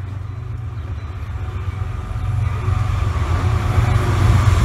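Passenger train locomotive approaching head-on at speed. Its low rumble grows steadily louder, and a rushing noise builds in the second half as it ploughs through snow beside the platform.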